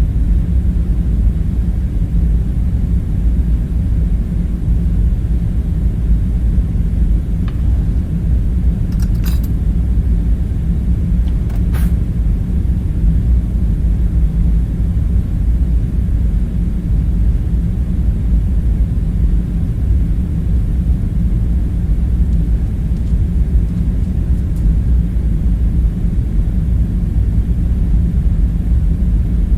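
Steady low rumbling hum of background ambience, with a few faint clicks in the first half.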